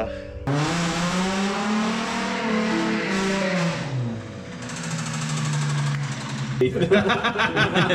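Holden VT Commodore drift car's engine revving hard: the pitch climbs, drops off, then holds steady. Near the end a different sound with a rapid, even rhythm takes over.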